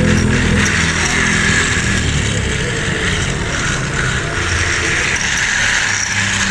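Battery-powered toy train running: its small electric motor whirring steadily with a fast rattle of plastic gears.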